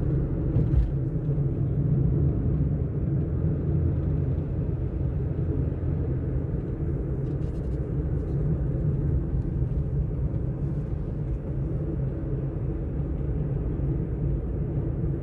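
Steady low rumble of a car heard from inside the cabin, engine and road noise while driving, holding an even level throughout, with a couple of faint small clicks.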